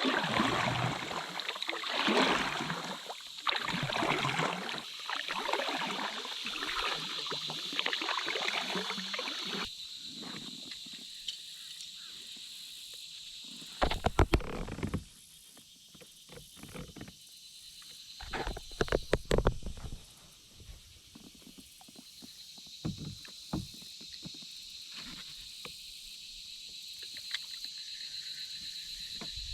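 Kayak being paddled: paddle strokes swishing and splashing through the water for the first several seconds, then a few sharp knocks about halfway through and again a little later.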